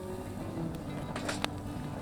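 Background music with held low notes, and a few light clicks a little over a second in.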